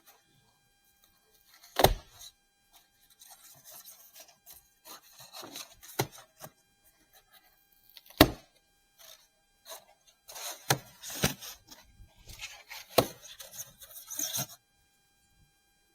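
Cabinet parts and packaging being unpacked and handled: a few sharp knocks, loudest about 2 and 8 seconds in, among stretches of rustling and scraping.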